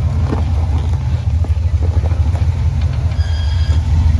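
Jeep engine running at low revs with a deep, pulsing rumble. A brief high squeal comes about three seconds in.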